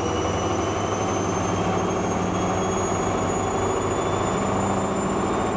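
Electrolux front-loading washing machine on its spin cycle: a steady drum-and-motor drone with a high whine that rises slowly in pitch as the drum speeds up.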